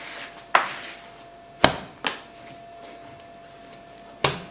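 Brioche dough being worked on a worktop with hands and a plastic bench scraper: four sharp slaps and knocks, the loudest about a second and a half in.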